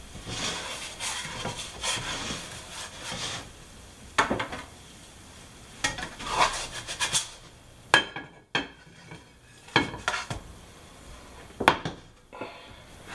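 Spatula scraping and rubbing under an egg loaf in a nonstick frying pan. This is followed by a series of sharp clanks and knocks of the pan and a plate as the loaf is slid out.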